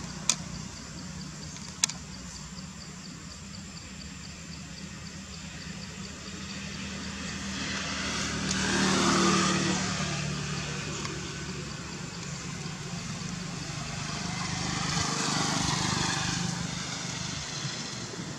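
Motor vehicles passing on a nearby road: two passes that swell and fade, the first peaking about nine seconds in and the second around sixteen seconds, over a steady low hum.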